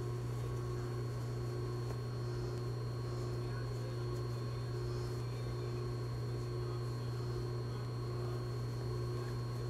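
Steady low electrical hum with a faint, thin high whine over it, unchanging throughout.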